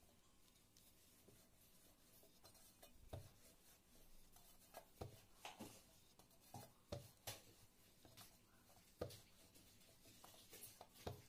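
Faint rubbing and scattered light knocks of a wooden rolling pin rolling spinach puri dough out on a floured steel plate, the pin now and then tapping the metal rim.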